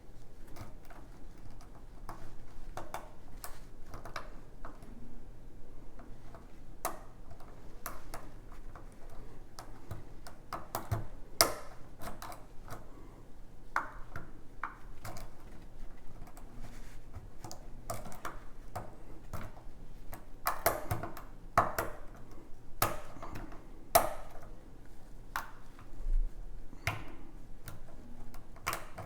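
A lock pick and tension wrench working the pins of a six-pin KIK lock cylinder: irregular small metallic clicks, ticks and scrapes, a few of them louder.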